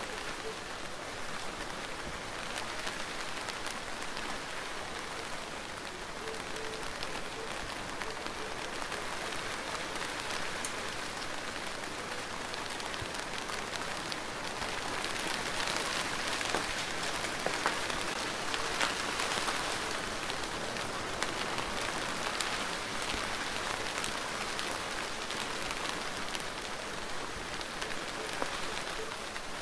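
Steady rain falling on surfaces, a continuous hiss with many separate drop ticks, with no thunder; it grows a little heavier about halfway through.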